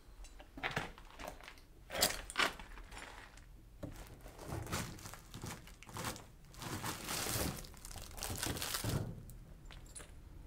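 Crunching and crackling of debris, with two sharp knocks about two seconds in and a longer stretch of rustling and scraping near the end.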